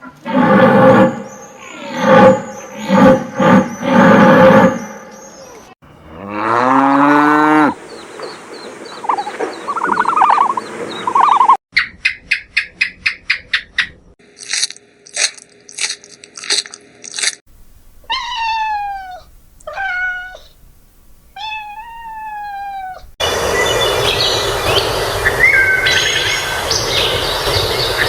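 A run of different animal calls cut one after another, each clip a few seconds long with an abrupt change between them: pitched calls, fast repeated pulses, and falling swept cries.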